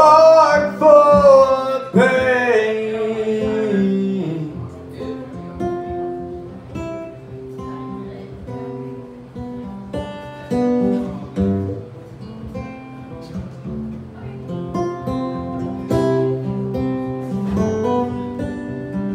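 Solo acoustic guitar played live, with a male voice holding a sung note that slides down over the first few seconds, then an instrumental guitar passage of separate plucked notes.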